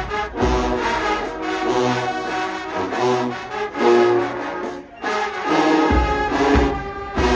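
HBCU marching band playing loud brass chords with bass drum hits, with a brief break about five seconds in before the band comes back in.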